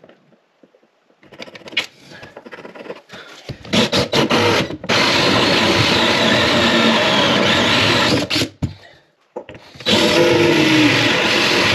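Cordless drill spinning a hole saw through the wooden bottom of a vanity cabinet. It starts in a few short bursts, runs in a steady cut for about three seconds, stops briefly, then cuts steadily again near the end.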